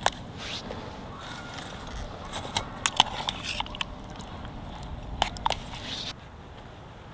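A metal spoon stirring stew in a metal camp pot on a gas stove, scraping and clinking against the pot several times, over a steady hiss that cuts off about six seconds in.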